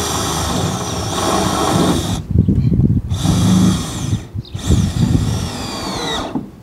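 Cordless drill driving self-drilling screws into corrugated steel sandwich roof panels. It runs in three stretches, with brief pauses about two and four seconds in.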